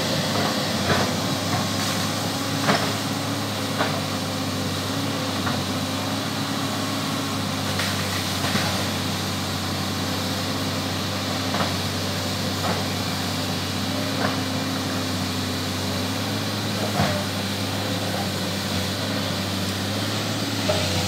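Excavator engine running steadily at a constant speed, with irregular clanks and knocks scattered through it.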